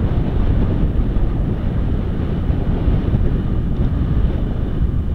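Wind rushing over the microphone while riding in traffic, a steady dense rumble mixed with road and engine noise.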